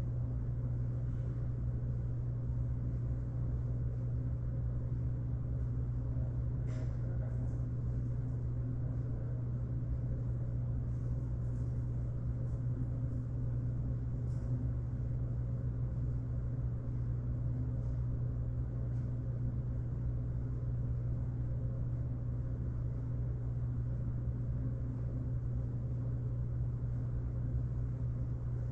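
A steady low mechanical hum that holds an even level throughout, with a few faint clicks about a quarter and half of the way through.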